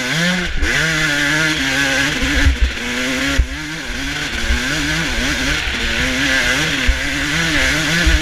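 2005 Suzuki RM250's two-stroke single-cylinder engine revving up and down continuously as the dirt bike is ridden hard on a motocross track, heard close up with heavy wind rush and occasional low thumps.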